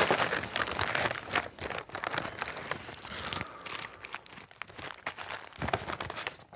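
A white takeaway bag and its wrapping crinkling and rustling as they are pulled open and a box of chips is lifted out. The crinkling is busiest in the first few seconds and then comes in sparser rustles.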